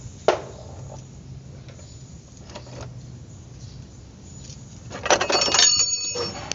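Metal tools clinking against metal engine parts during turbocharger removal: a sharp click early, then a louder metallic clatter with ringing tones about five seconds in.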